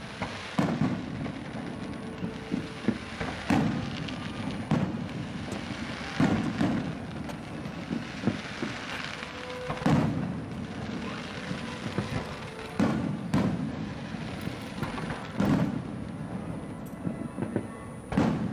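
Aerial firework shells bursting in a large display: a deep boom every one to three seconds, with crackle and echo between the bursts.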